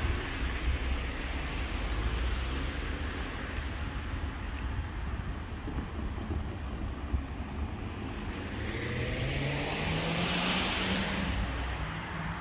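Steady low vehicle rumble. About eight seconds in, a vehicle approaches and passes with a whine rising in pitch, loudest around ten seconds in.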